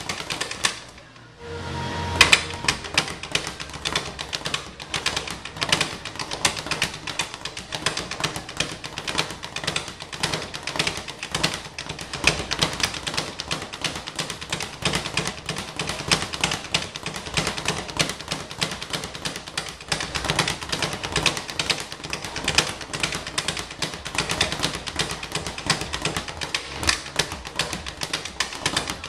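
Speed bag being punched in a fast, continuous rattle against its rebound platform, with a brief pause about a second in.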